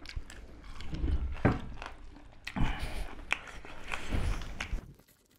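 Close-up eating sounds of people biting meat off chicken drumsticks and chewing, in three loud bouts, with wet clicks and smacks.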